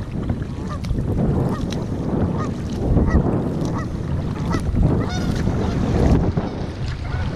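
Geese honking repeatedly from the water ahead, a short call every half second or so, with a louder, fuller honk about five seconds in as birds splash up off the water. Steady wind buffets the microphone underneath.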